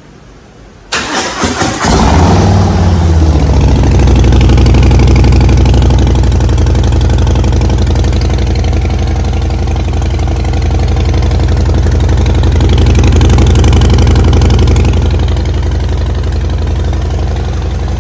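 Harley-Davidson Low Rider ST's Milwaukee-Eight 117 V-twin, fitted with Vance & Hines Short Shots exhaust, is cranked by the starter about a second in. It catches within a second and settles into a loud, steady idle that eases off a little near the end.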